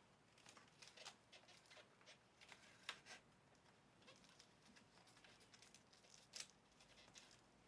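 Near silence with faint, scattered clicks and rustles of light handling, two slightly louder ticks about three seconds in and near the end.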